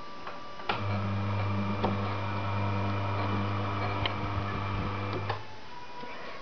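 Electric gear motor of a homemade printing press, driving its chain sprocket. It switches on with a click a little under a second in, runs with a steady hum for about four and a half seconds, then switches off with a click.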